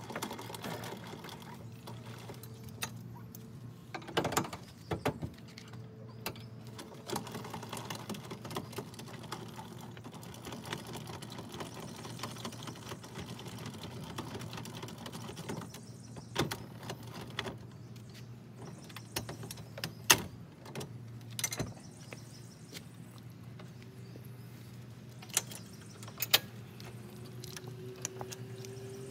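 Metal trailer hitch hardware being handled: scattered clinks, clanks and jingles of safety chains, the coupler and the tongue jack, over a steady low hum.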